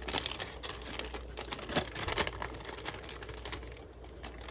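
Parchment paper crinkling and crackling in irregular bursts as it is pressed down onto sticky marshmallow cereal treats in a baking dish.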